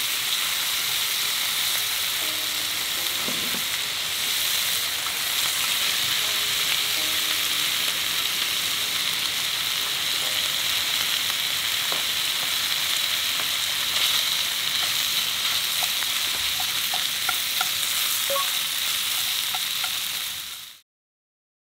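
Food sizzling steadily in a hot frying pan, with a few small pops near the end; the sound cuts off abruptly.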